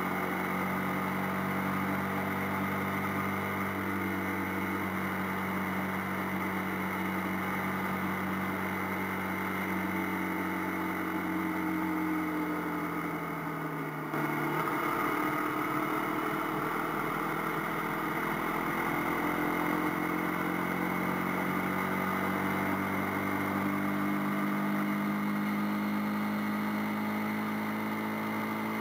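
AKT TT 250 Adventour motorcycle's single-cylinder engine running under way at a steady pace. Its pitch falls about halfway through as the bike slows, then rises again near the end as it accelerates, over steady wind and road noise.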